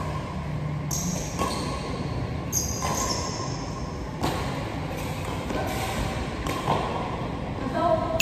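Badminton rackets hitting a shuttlecock in a rally: a series of sharp hits roughly a second apart.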